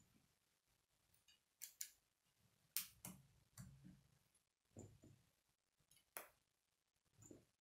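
Faint, sharp clicks of plastic K'nex rods and connectors snapping together and being handled, about eight clicks at irregular spacing, some in quick pairs.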